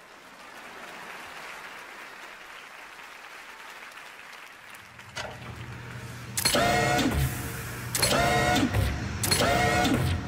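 Electronic dance backing track starting up. For about five seconds there is only a faint hush. Then a click brings in a low bass hum, and about a second later loud synthesized sci-fi sound effects begin, swooping up and down in pitch in repeated phrases.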